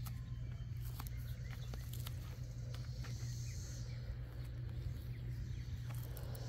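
Outdoor garden ambience: a few faint bird chirps over a steady low hum, with light scattered clicks and crunches from steps on wood-chip mulch.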